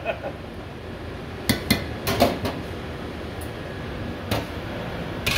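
Metal ladle and tongs clinking and knocking against a steel wok of boiling noodle broth: a cluster of sharp clinks about a second and a half in, then single knocks spaced out to the end, over a steady background hiss.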